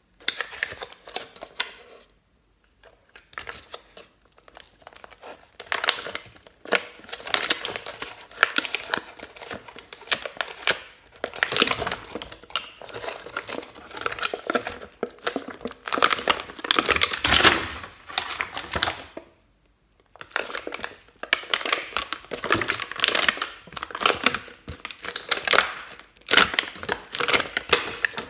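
Sticky slime being squeezed and pulled out of a plastic palette tray by hand: a dense run of wet clicking and crackling, with short lulls about two seconds in and around nineteen seconds.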